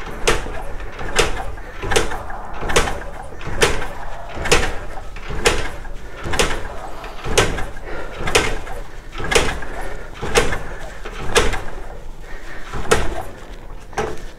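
Motorcycle kick-starter kicked over and over, a sharp clunk about once a second, turning the engine over to pump out the carbon cleaner poured into the cylinder.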